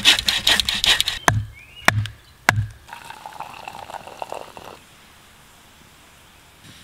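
Hand folding saw cutting through a dead branch with quick strokes, followed by three sharp knocks, each with a low thud. Then hot chaga tea poured from a metal coffee pot into an enamel mug for about two seconds.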